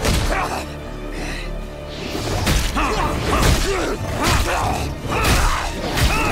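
Fight-scene soundtrack: punches land about once a second from around two seconds in, mixed with short pained vocal cries and grunts over dramatic score music.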